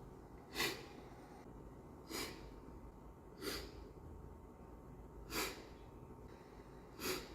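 A man sniffling through his nose five times, each a short sharp intake, about one every second and a half.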